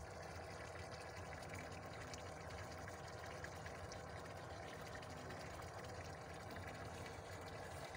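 Steady, even rushing of water around a small wooden boat, with faint scattered ticks.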